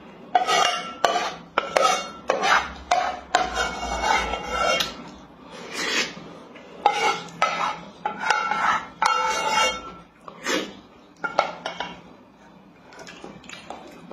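Wooden spoon scraping and knocking against the metal inner pot of a rice cooker in quick repeated strokes, scooping out the last of the rice. The strokes ease off about ten seconds in.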